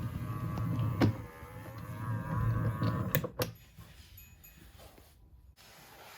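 Small battery-powered robot vacuum's motor whining and wavering in pitch, with a sharp knock about a second in and two more about three seconds in, after which it stops.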